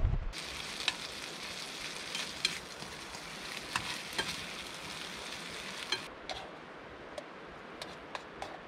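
Diced Spam sizzling in a small frying pan on a backpacking canister stove, with the clicks and scrapes of a utensil stirring it against the pan. About six seconds in the sizzling drops away abruptly, leaving scattered taps and clicks.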